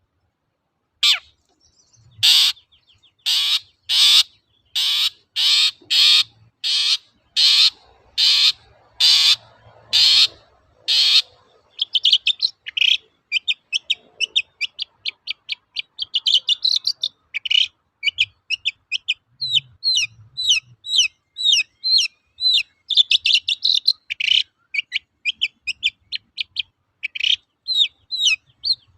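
Long-tailed shrike (cendet) calling: a run of harsh, rasping calls at a steady pace of about one and a half a second, then, from about twelve seconds in, a fast, varied chatter of short high notes, its song of mimicked phrases.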